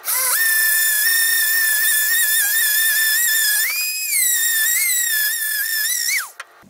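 Dremel rotary tool with a sanding drum spinning up to a loud, steady high-pitched whine while sanding the inner lip of a PVC pipe adapter. The pitch swings up briefly about four seconds in, then falls away and stops as the tool is switched off about six seconds in.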